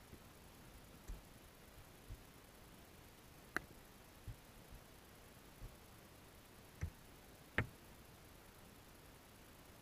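Faint, irregular clicks and knocks heard underwater through a GoPro's sealed housing, over a quiet steady hiss. There are about seven, unevenly spaced, with the sharpest a little past a third of the way in and near the end.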